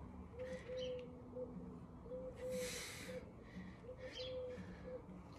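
A dove cooing a three-note phrase, short, long, short, repeated about every two seconds. A person's hard exhale comes about halfway through.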